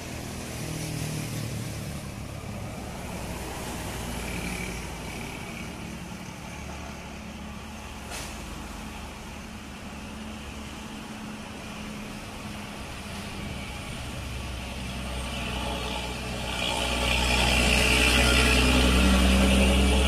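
Road traffic on a hill: buses and other vehicles drive past with diesel engines running. A heavy truck pulling a flatbed semi-trailer passes close near the end and is the loudest sound, a deep steady engine drone.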